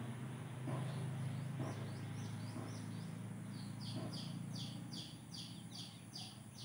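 Baby chicks peeping: repeated high cheeps that fall in pitch, about two a second, growing stronger from about halfway through, over a steady low hum.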